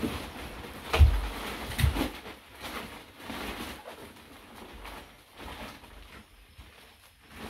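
Plastic wrapping on a rolled mattress-in-a-box crinkling and rustling as it is pulled off and handled. There are two dull thumps, about a second and two seconds in, as the rolled mattress is moved.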